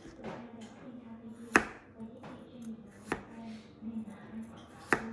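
Chef's knife chopping canned water chestnuts on a plastic cutting board: three sharp knocks of the blade striking the board, about a second and a half apart, the first the loudest.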